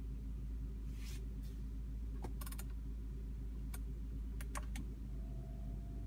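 Sharp clicks from the Audi D3 S8's MMI control knob and buttons as the air suspension setting is switched to lift, including a short run of rapid ticks from the knob turning, over a steady low hum. A faint steady tone starts near the end.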